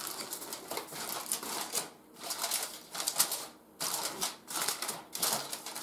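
Aluminum foil crinkling in a run of short rustles as it is pressed and crimped down around a baking dish to seal it, with two brief pauses.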